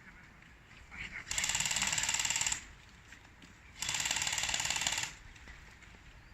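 Automatic electric airsoft gun firing two full-auto bursts, each a fast, even rattle a little over a second long, about a second apart.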